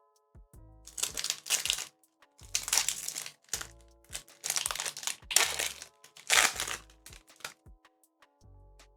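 Foil booster-pack wrapper being crinkled and torn open in four bursts, over soft background music.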